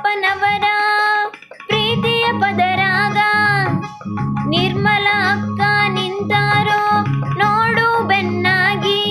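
Music: a Kannada song sung over instrumental backing, with a brief drop in the music about a second and a half in.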